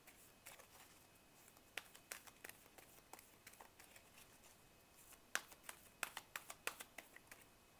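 Tarot cards being shuffled by hand: faint, scattered light clicks and taps of card edges, coming thicker from about five seconds in.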